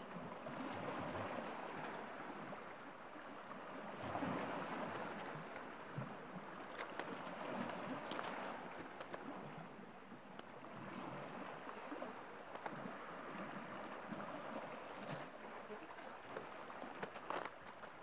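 Small sea waves lapping and splashing against shore rocks, the wash swelling and ebbing every few seconds, with little splashes and drips between.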